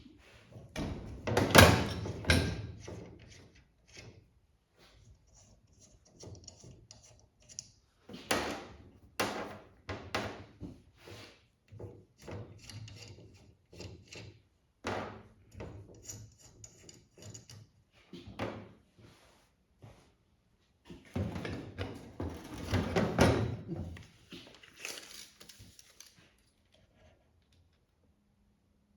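Irregular knocks, clatter and rubbing of brake parts being handled while a master cylinder is fitted to a pedal assembly, loudest about two seconds in and again in a longer stretch about three-quarters of the way through.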